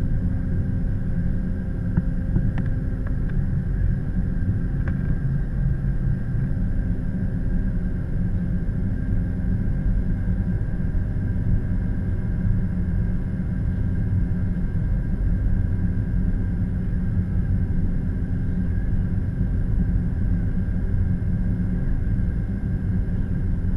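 Steady deep rumble of a Boeing 717 jetliner under takeoff power: its Rolls-Royce BR715 turbofans and airflow, with a faint steady whine on top.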